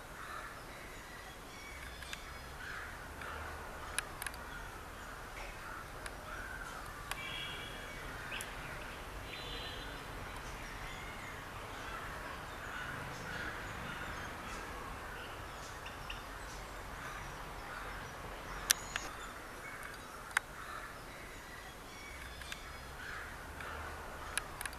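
Yellow-billed babblers chattering, with overlapping harsh calls throughout and a couple of louder grating calls midway. A few sharp clicks cut in, the loudest about three quarters of the way through.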